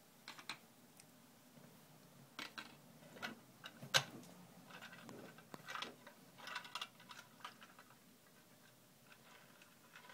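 Light, irregular plastic clicks and taps of HO-scale model train pieces being handled and set down on the layout, faint, with the sharpest click about four seconds in and a run of small clicks soon after.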